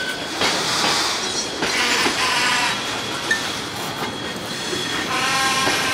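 Freight car wheels rolling slowly through a curve: clattering and knocking over the rail joints, with short high-pitched flange squeals a few times and a stronger squeal near the end.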